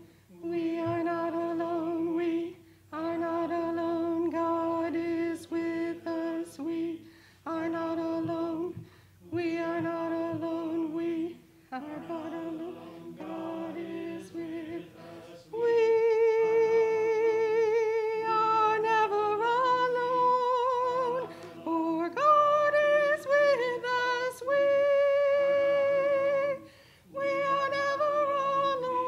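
Small mixed choir singing an anthem unaccompanied, in phrases broken by short pauses. The voices grow louder and more sustained about halfway through, with clear vibrato.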